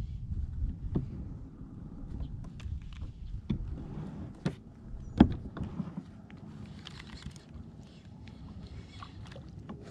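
Low, steady rumble of wind and water around a kayak with scattered light clicks and knocks from a baitcasting rod and reel being worked, the loudest a sharp knock about five seconds in.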